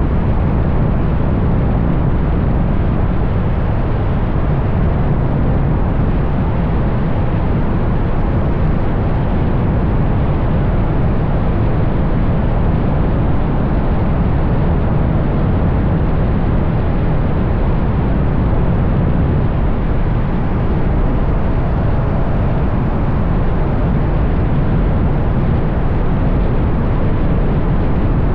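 Wind buffeting an outside-mounted camera microphone on a car at road speed, mixed with tyre and road noise: a loud, steady, low rumble with no clear engine note.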